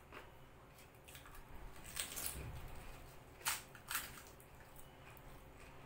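Crisp golgappa (pani puri) shells cracking and crunching, faintly, with a few sharp cracks; the loudest come about three and a half and four seconds in.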